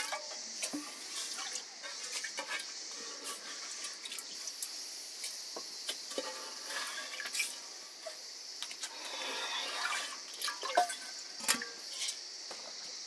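Rice being handled in water in a steel bowl and put by hand into an aluminium pot: water splashing and dripping, with light clinks of metal, over a steady high hiss.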